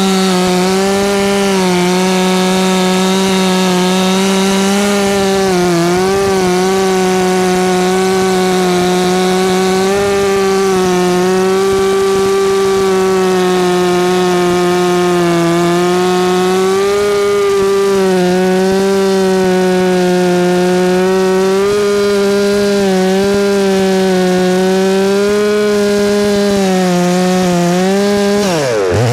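New FarmMac F669 two-stroke chainsaw held at high revs, cutting through a large pecan log, its pitch wavering slightly under load. Near the end the revs dip sharply and climb back up.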